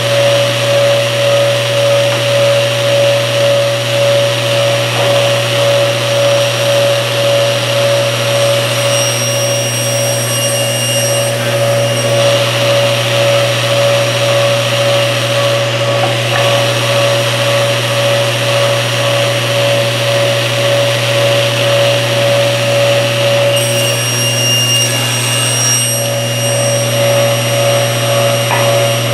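Table saw running steadily with a constant motor hum while boards are crosscut, with a brief change in the sound twice as the blade meets the wood.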